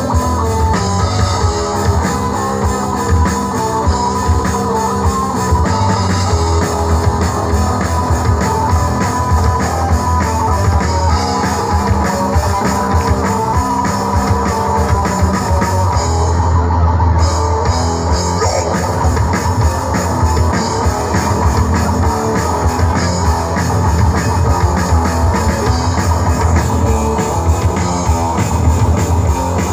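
Rock band playing live through a stage PA: electric guitars over a drum kit, loud and continuous, with a short drop-out of the cymbals just past the middle.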